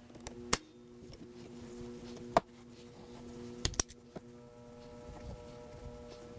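A few sharp clicks and taps from hand tools, vice grips on the antenna mount, over a faint steady hum of held tones.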